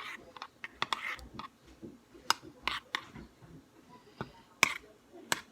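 Spoon stirring oatmeal in a bowl, clicking and knocking against the bowl in irregular sharp taps, a few a second.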